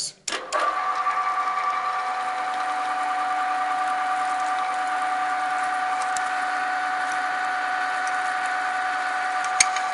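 Drill press switched on with a click, then its motor and spindle running with a steady whine while a twist drill bores a pilot hole through aluminum. Near the end a click, and the whine starts to fall in pitch as the machine is switched off.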